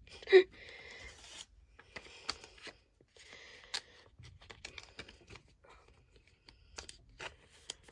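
Pokémon trading cards being handled: short papery rubbing and sliding sounds with small clicks, as cards are slid against each other and set down on the playmat.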